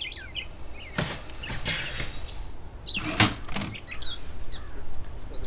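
Corona typewriter typing: a handful of sharp key strikes and mechanism clacks, with one longer rattle about two seconds in.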